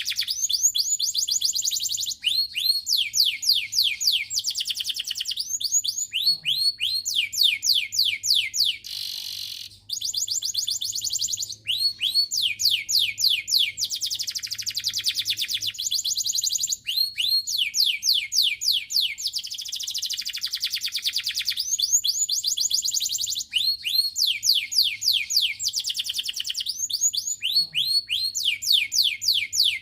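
Domestic canary singing a long, continuous song of rapid trills: phrases of fast repeated notes, each phrase a second or two long, passing straight into the next with only a few brief pauses.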